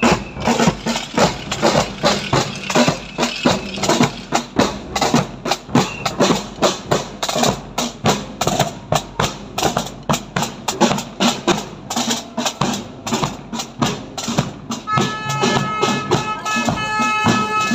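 Marching snare and bass drums beating a steady rhythm as they pass. About 15 seconds in, several steady held tones join the beat.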